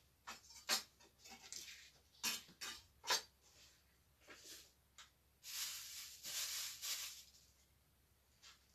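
Faint kitchen clatter of pots and utensils being handled: several sharp knocks and clinks in the first few seconds, then a rushing hiss lasting a little under two seconds past the middle.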